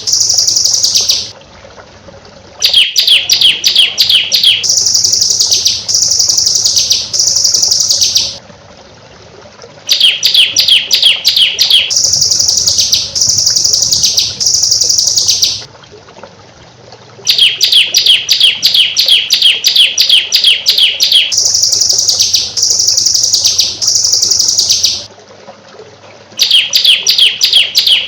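Songbird song played as a training track: a loud phrase repeated about four times, each a rapid run of sharp chattering notes followed by three long high, buzzy whistles, with a brief pause between phrases.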